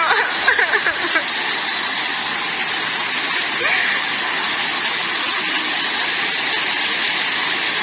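Fast-flowing floodwater rushing steadily, with a few voices in the first second.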